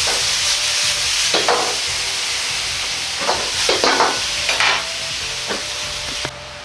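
Shrimp, taro and bok choy sizzling in a wok as they are stir-fried in oyster sauce, with a metal ladle scraping and clanking against the wok about seven times. The sizzle drops suddenly near the end.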